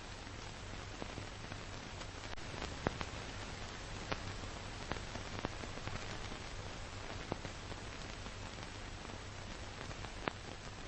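Steady hiss with scattered clicks and a low hum: the surface noise of an old film soundtrack, with no other sound on it.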